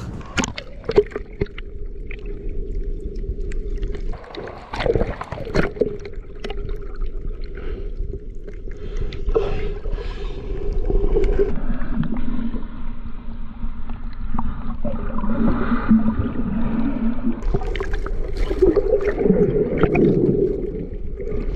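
Seawater sloshing and gurgling in the shallows as a small fish is released back into the water.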